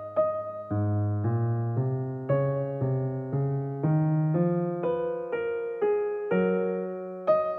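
Background piano music: single notes struck one after another at a gentle pace, about two a second, each fading before the next.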